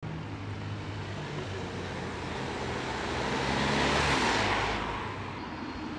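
A car driving past close by, its engine and tyre noise swelling to a peak about four seconds in and then fading away.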